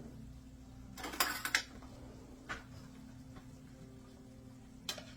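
Fork or cutlery scraping and clinking on a dinner plate of food: one longer scrape about a second in, a shorter one later and a sharp click near the end, over a steady low hum.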